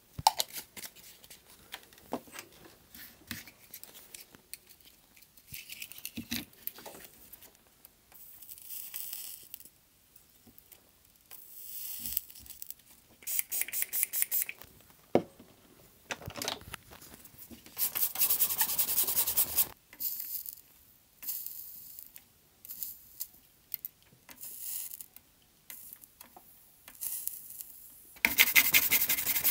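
Hand soldering of a connector's pins on a circuit board: repeated short hissing, crackling bursts as solder and flux melt, with small clicks and handling noises between them. The bursts come more often and louder near the end.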